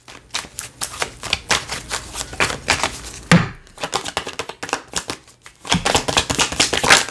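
A deck of tarot cards shuffled overhand in the hands: a rapid run of card flicks and slaps, broken by two short pauses and loudest near the end.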